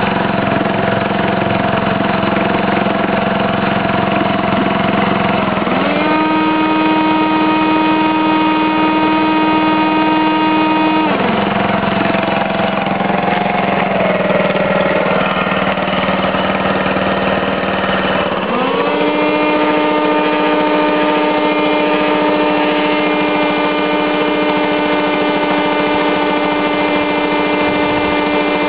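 Home-built generator running steadily under load from a vacuum cleaner, with a continuous low hum. The vacuum's motor whine glides up in pitch about six seconds in, drops away about five seconds later, and rises again at about eighteen seconds, holding until near the end.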